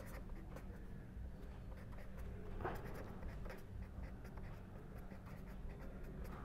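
Pen writing on paper: faint, short scratching strokes as letters are written out.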